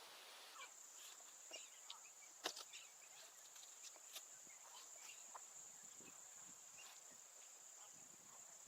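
Crickets trilling faintly: a steady high-pitched trill that sets in just after the start, with scattered light ticks and taps, the loudest about two and a half seconds in.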